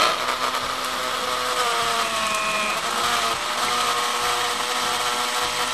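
Countertop blender motor running at speed, puréeing cubed seedless watermelon into a smooth liquid. It is a steady whine, its pitch wavering briefly about a second and a half in.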